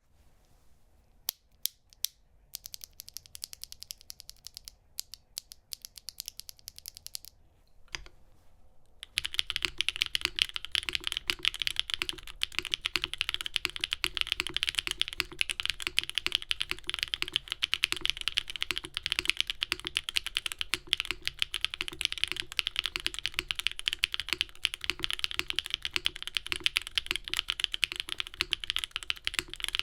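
Typing on a custom mechanical keyboard: a copper-cased, gasket-mounted Neo75 Cu with lubed Gateron Deepping switches on a polypropylene plate. A few single key presses and lighter typing at first, then fast, steady typing from about nine seconds in.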